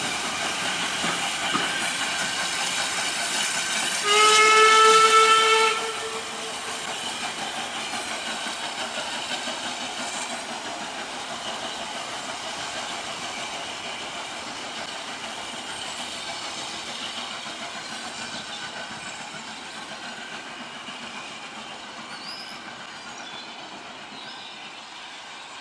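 Steam train pulling away: the steady running noise of the locomotive and coaches on the rails, with the steam locomotive's whistle sounding once for about two seconds, about four seconds in. The train sound then slowly fades as it draws into the distance.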